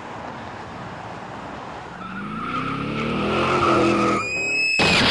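Steady road noise inside a truck cab. From about two seconds in, a rising tyre squeal from a car skidding builds and grows louder. Near the end comes a sudden loud noise as the car crashes into the back of a lorry.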